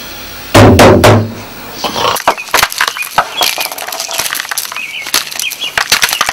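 A few loud beats on a hand-held frame drum, about half a second in, followed by a dense run of short clicks and small high chirps.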